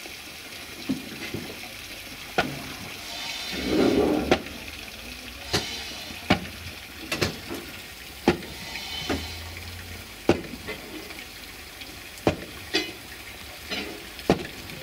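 Steam hissing from a standing narrow-gauge steam locomotive, louder in two short spells about four and nine seconds in, with irregular sharp clicks every second or two.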